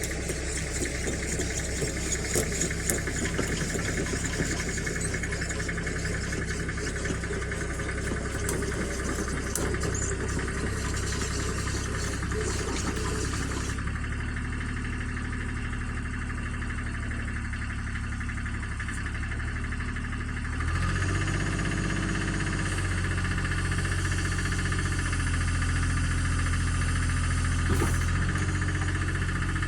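Komatsu excavator's diesel engine running steadily under work, rising in pitch and getting louder about twenty seconds in. A single short knock near the end.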